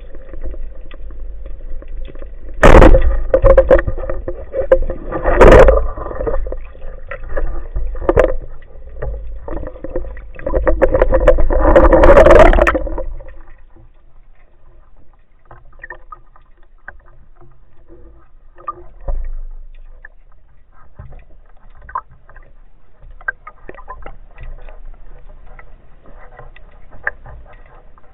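Water sounds: a steady hum with loud splashing surges about 3, 5 and 12 seconds in, then, from about halfway, much quieter scattered clicking and crackling.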